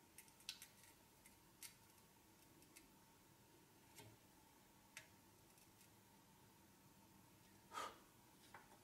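Near silence with faint scattered clicks and taps from handling small parts and tools at a soldering bench. There is a cluster of clicks in the first two seconds and a slightly longer noise near the end.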